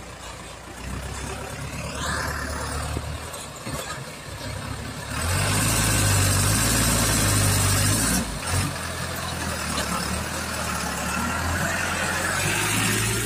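Engine of a light truck heavily loaded with oil palm fruit bunches, driving slowly past through deep mud. It gets louder about five seconds in as the truck draws level and stays loud until near the end, with a brief rising whine about two seconds in.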